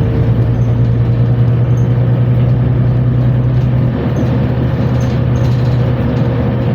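New Flyer Xcelsior XN60 articulated bus running with a steady low engine drone and a thin, steady whine above it: the weird transmission sound. The low drone eases slightly about four seconds in.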